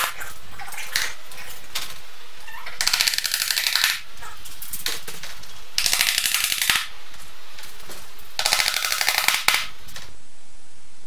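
Three bursts of very rapid, rattling strikes, each about a second long, as fasteners are driven through pegboard into the wall behind it.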